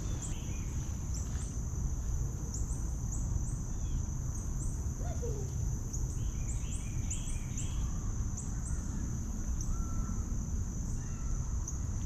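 Creek-side nature ambience: a steady low rush from the flowing creek under a continuous high-pitched insect drone, with scattered bird calls, including a quick run of chirps about six to seven seconds in.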